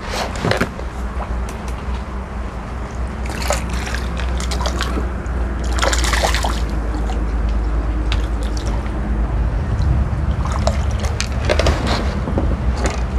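Water splashing and sloshing in a few separate bursts, the loudest about halfway through, as a hooked crucian carp is played and landed. A steady low hum runs underneath.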